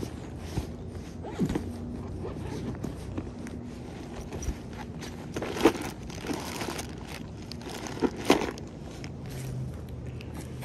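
Backpack being rummaged through: rustling fabric, scraping and zipper sounds, with a few sharper knocks, one about five and a half seconds in and two close together about eight seconds in.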